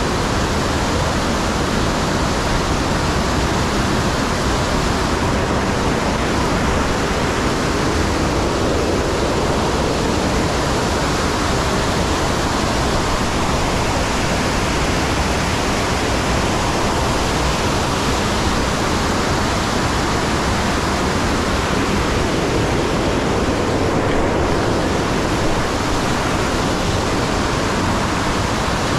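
Waterfall pouring into a rock grotto: a loud, steady rush of falling water.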